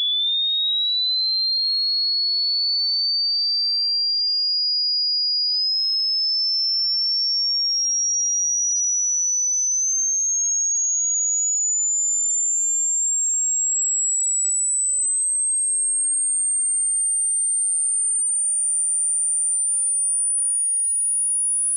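Hearing-test sweep: a single pure electronic tone climbing slowly and steadily in pitch into the high range, at a constant level. This upper range is the one used to check age-related hearing loss, where older listeners stop hearing it as it rises.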